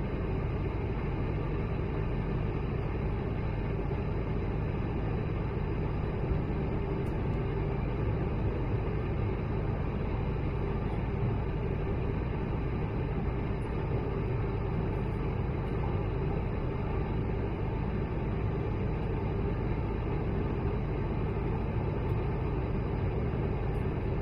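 Steady cabin drone of an Airbus A220-100 in its climb: the Pratt & Whitney PW1500G geared turbofan engines and the airflow, heard inside the cabin at a window seat over the wing, with a faint steady hum.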